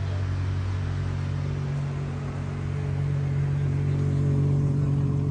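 Ferrari 812 Competizione's naturally aspirated V12 running at low revs as the car rolls slowly past. It makes a steady low drone that swells a little about four seconds in.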